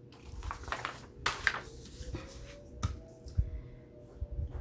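Sheets of paper being handled and laid down on a work surface: a few short rustles and light taps.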